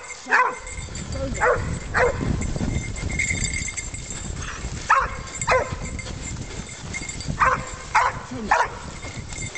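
Search dog barking: about eight short, sharp barks, each dropping in pitch, coming in twos and threes with gaps between.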